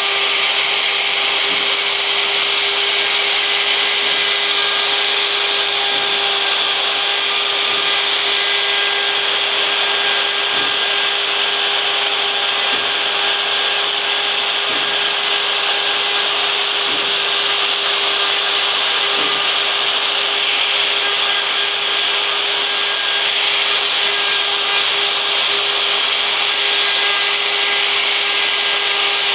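CNC router spindle running steadily with a constant high whine while its bit cuts into wood.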